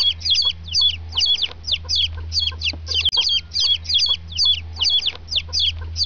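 Bird chirping: a fast run of high, evenly repeated chirps, about three or four a second, over a steady low hum. It starts and cuts off abruptly, like an inserted sound clip.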